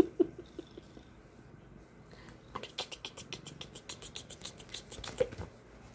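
Kittens scuffling with a hand on a quilted bedspread: a quick run of scratchy rustles from claws and fabric, starting about two and a half seconds in and stopping shortly before the end.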